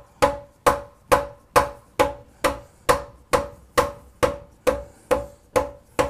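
Hammer tapping steadily on a metal engine part, evenly spaced strikes a little over two a second, each with a short metallic ring.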